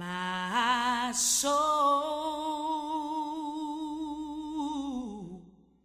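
A woman singing gospel unaccompanied, holding the word "My" as one long note with vibrato. She steps up in pitch twice in the first second and a half, holds the note, then slides down and fades out near the end.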